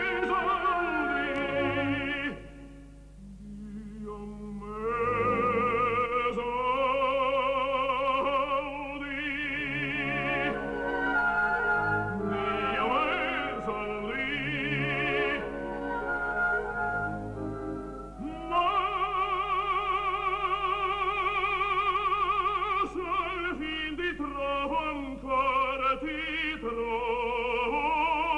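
Operatic baritone singing with accompaniment, a wide vibrato on the held notes, including a long held note in the second half. The music dips briefly about three seconds in.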